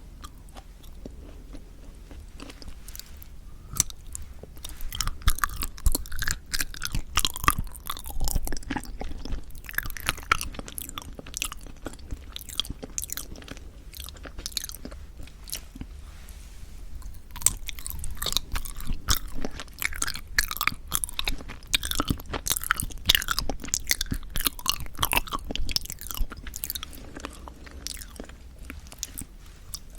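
Mouth sounds of someone chewing soft sweet red bean jelly (yanggaeng) close to the microphone: rapid runs of small clicks and smacks, starting a few seconds in, with a brief pause about halfway.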